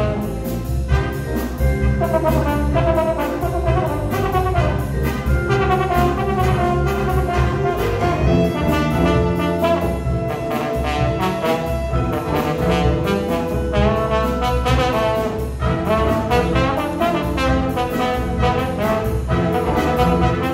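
A jazz big band playing: trumpets, trombones and saxophones in full ensemble over a drum kit keeping a steady beat.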